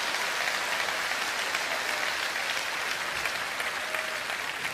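Audience applauding steadily, a dense round of many hands clapping.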